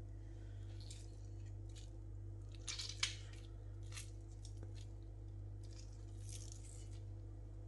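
A lemon being squeezed by hand over a mixing bowl: a few short wet squishing rustles, with a sharp click about three seconds in, over a steady low hum.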